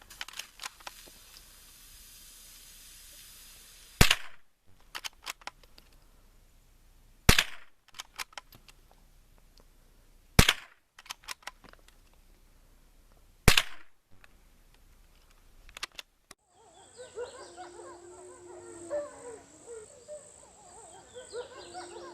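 Four gunshots about three seconds apart, each followed by a few fainter cracks. From about sixteen seconds in the shooting stops and a different sound takes over: a steady high whine with wavering pitched sounds beneath it.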